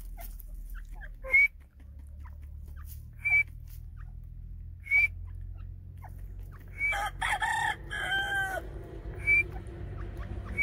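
A white teetar (white francolin) calling: short, sharp, high chirps about every two seconds. A longer, louder call of several notes comes about seven seconds in, over a low steady hum.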